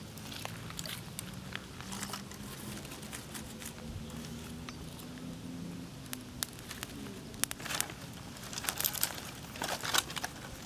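Small fire of dry twigs and grass crackling, with dry sticks being laid and shifted on it by hand. The clicks and snaps come thicker in the second half.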